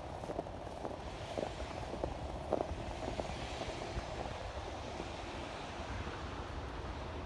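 Footsteps crunching in fresh snow during the first few seconds, over a steady low outdoor rumble.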